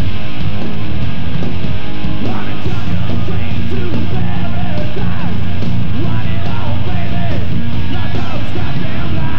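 Loud hard rock band playing: distorted electric guitars, bass and drums, with a shouted, yelling lead vocal.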